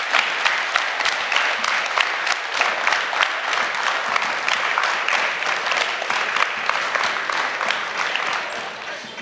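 A large group of people clapping their hands together, a dense patter of claps that tapers off near the end.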